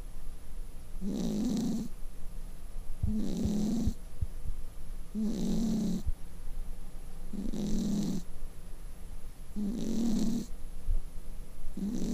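Exotic shorthair cat snoring in a steady rhythm, about one snore every two seconds, six in all. Each snore is a low rumble with a breathy hiss above it.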